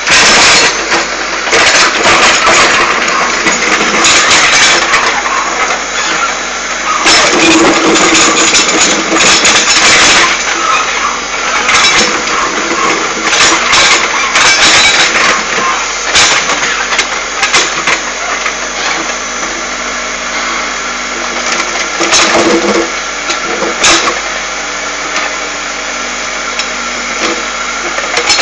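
Backhoe loader's diesel engine running steadily, with many sharp knocks and clanks scattered through it.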